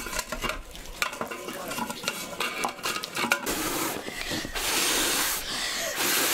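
Metal clinking and scraping as a samovar is worked with tongs and its chimney pipe is handled, followed by two stretches of steady hissing about halfway through and near the end.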